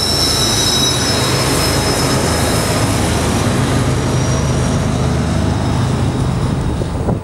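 Freight train's diesel locomotives passing close by, their engines running steadily under power. A high wheel squeal fades out within the first two seconds, while the engine sound carries on loud until it cuts off at the end.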